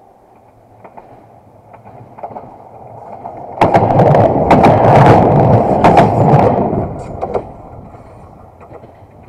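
A train passing directly over a camera set between the rails. Faint ticks come from the rails as it approaches, then about three and a half seconds in it arrives with a sudden loud clatter of wheels on the rails and sharp knocks. This lasts about four seconds and stops abruptly, leaving faint rail noise.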